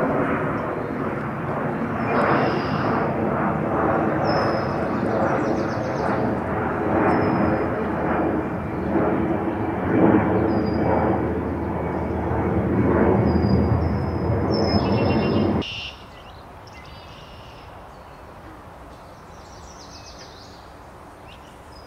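Loud, steady drone of an aircraft passing over, with short high bird calls repeating above it. The drone cuts off suddenly about sixteen seconds in, leaving a quieter background with a few bird calls.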